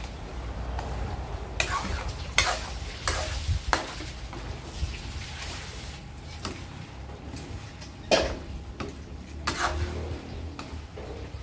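Metal spatula scraping and clanking against a wok as cubes of skin-on pork belly are turned, with a light sizzle as the pork fries in its rendering fat for pork cracklings. A few quick scrapes come in the first four seconds, then two louder ones about eight and nine and a half seconds in.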